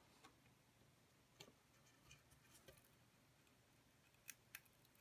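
Near silence with faint, scattered ticks and two sharper clicks near the end, as a laser-cut 1/8-inch Baltic birch plywood living hinge is bent by hand in a clamped jig.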